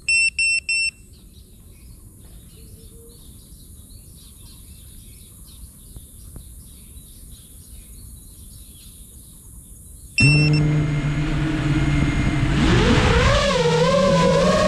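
GEPRC Mark 5 FPV quadcopter on the ground: four short, high beeps at the start, then faint bird chirps for several seconds. About ten seconds in its brushless motors spin up with a steady hum and a single beep, and near the end the pitch rises and wavers as the throttle comes up for takeoff.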